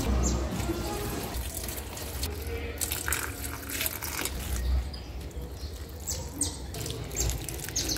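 Water pouring from a plastic watering can onto the soil of potted plants.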